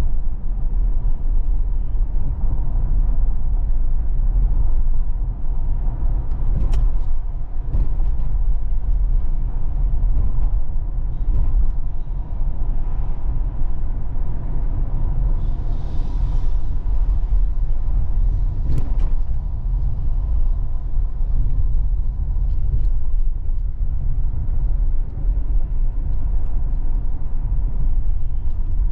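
A car driving along: a steady low rumble of engine and road noise, with a couple of faint clicks.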